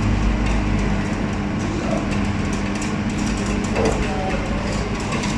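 Hot-air rework station blowing steadily over a phone circuit board, a constant rushing hiss with a low hum, as it heats the board to reflow solder and seat a component back in place.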